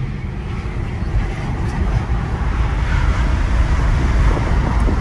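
Cabin noise of a 2024 Tesla Model 3, an electric car, accelerating at full throttle uphill from a standstill. It is a low road and tyre rumble that grows steadily louder as the speed rises.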